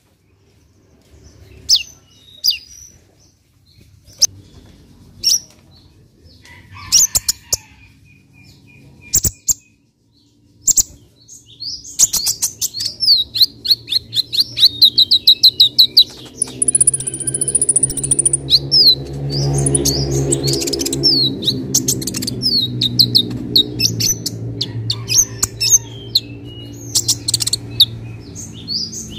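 Van Hasselt's sunbird (kolibri ninja) singing: scattered single high chirps at first, then from about twelve seconds in a fast, unbroken run of sharp, high, downward-sliding chirps. A low drone swells and fades behind the song in the second half.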